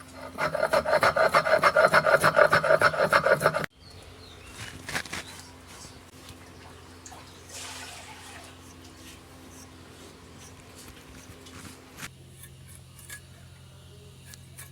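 Rapid, rhythmic scraping strokes, many to the second, for about three seconds. The run cuts off suddenly, and quieter scattered knocks and rubbing follow.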